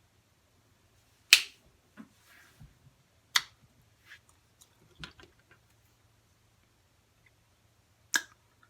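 Four sharp finger snaps, the first three about two seconds apart and the last after a longer pause, with faint small handling sounds between them.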